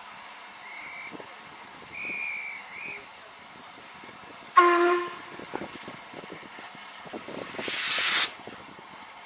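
A high whistle blown in two short bursts, as a guard's whistle gives the right away, then a short, loud blast on the LMS Stanier 8F steam locomotive's whistle. About three seconds later a swelling hiss of steam ends abruptly as the locomotive prepares to pull away.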